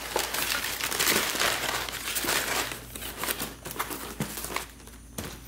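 Crumpled brown packing paper crinkling and cardboard box flaps rustling as a parts box is handled and folded shut. The rustle is busy with small crackles, then dies down about four seconds in.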